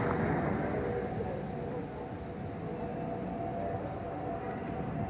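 Jet airliner passing overhead after takeoff: a low engine rumble with a steady whine in it.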